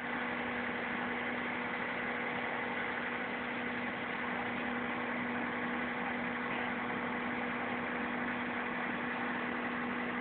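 Fire engines' motors running steadily, a constant hum with one low tone held throughout over an even rushing noise.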